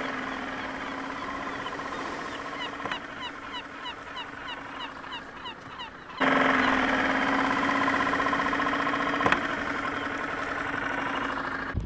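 Small outboard motor on an inflatable dinghy running at a steady pitch while towing a second dinghy. About halfway through it is suddenly much louder and closer, with a single sharp click a few seconds later.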